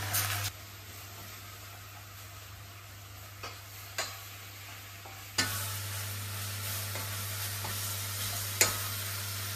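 Chicken, onion and pepper filling sizzling in a stainless saucepan while a wooden spoon stirs it, with light taps of the spoon on the pan. The sizzling is quieter in the first half and louder from about halfway, and a sharper knock of the spoon comes near the end.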